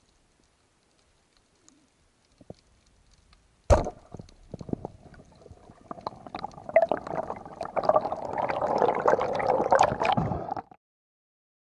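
Underwater sound around a freediving spearfisher near a rocky seabed. A sharp knock comes about four seconds in, then a building wash of water noise with many scattered clicks and crackles, which cuts off abruptly near the end.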